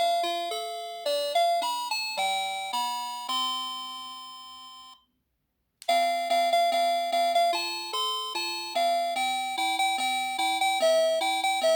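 NX-5776-675 electronic doorbell playing its chime melodies, a quick run of bell-like notes, each fading away. One tune ends on a long held note that dies out, there is about half a second of silence some five seconds in, then another melody begins.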